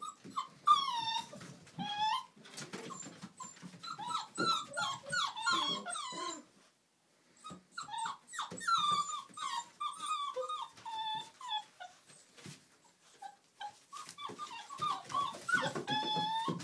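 Old English Sheepdog puppies playing together: bursts of short, high-pitched yips and whines, with a brief lull about halfway through.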